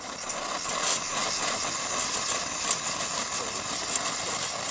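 Liquid-fuel backpacking stove burning petrol, its burner coming on suddenly with a steady rushing hiss as the fuel valve is opened. It flares up with yellow flame because the generator was not yet fully preheated.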